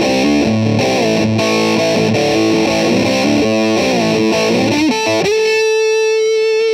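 Electric guitar played through a fuzz pedal, with a heavily distorted tone: a riff of moving notes, then a single note held for about a second and a half that bends down in pitch at the very end.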